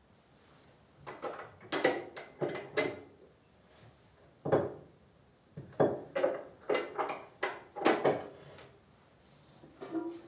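Ceramic mugs and crockery clinking and knocking as they are handled and set down on a kitchen counter: a string of sharp knocks, each with a short ring, coming in clusters.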